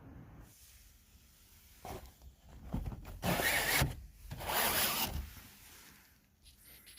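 Two rubbing, swishing sounds, each just under a second long, about three and four and a half seconds in, with a few fainter scrapes around them.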